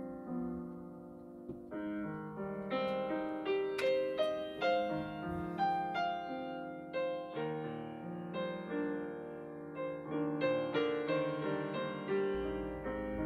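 Background piano music: a gentle melody of separate struck notes over chords.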